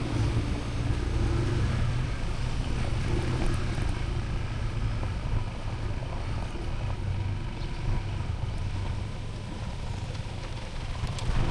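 A motor vehicle engine running steadily with a low rumble.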